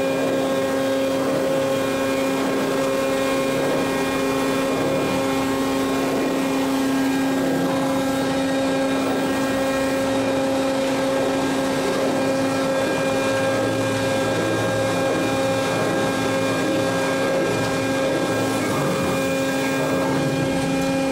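Electric motor of a forklift battery-changing machine running with a steady whine, holding one constant pitch.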